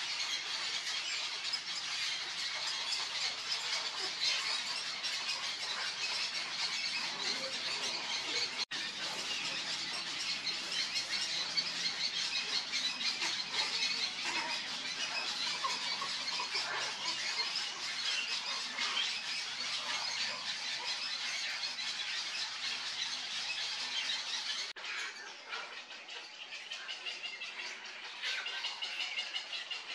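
Many white downy heron chicks in a nesting colony squealing and squawking, a dense, continuous high-pitched chatter. It thins and drops a little after an abrupt cut about 25 s in.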